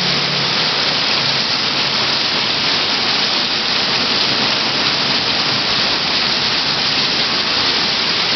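Very heavy rain pouring down onto the street and parked vehicles: a steady, unbroken hiss.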